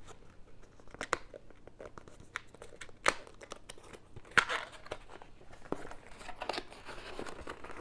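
Cardboard doll box being worked open by hand: scattered scrapes, clicks and rustles of the packaging, the loudest about three and four and a half seconds in. The box is a tight fit and resists opening.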